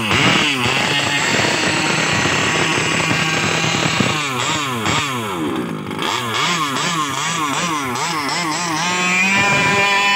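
20 cc two-stroke petrol engine of an RC Baja buggy running hard, its pitch rising and falling again and again as the throttle is opened and closed, then holding a steadier pitch near the end.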